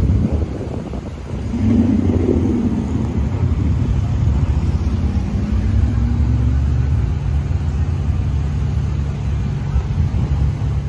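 Dirt-track race car engines running as a low rumble, with an engine's pitch rising and falling around two seconds in and again in the middle.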